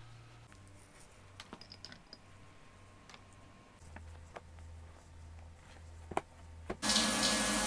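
Faint rustling and small clicks from handling the camera and the bedding, then near the end a loud, steady rushing noise starts suddenly.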